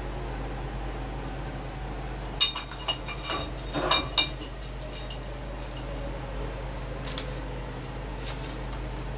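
A young crow's beak striking its food dish as it feeds: a quick run of sharp clinks over about two seconds, followed by a few fainter clicks near the end.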